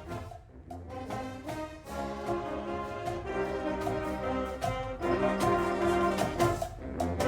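Orchestral music with brass, getting louder about two thirds of the way through.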